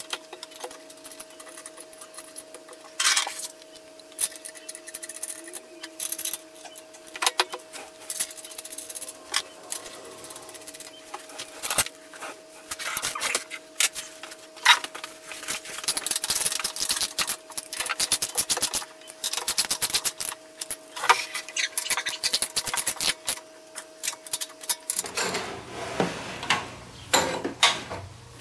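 Metal tools and hardware clicking, clinking and knocking, in scattered hits and quick runs, as a pressure-washer pump is fastened onto an engine's shaft. A steady faint hum runs underneath and stops about three seconds before the end.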